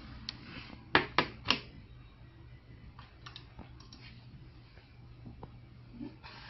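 Three sharp clicks in quick succession about a second in, then several fainter clicks and taps, over a low steady hum.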